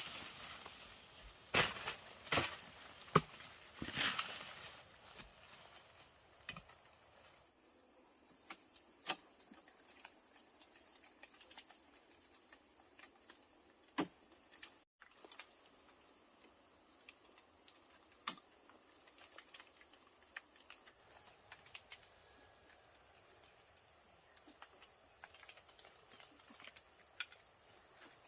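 Insects droning steadily on one high pitch, with scattered clicks and knocks, several louder ones in the first few seconds.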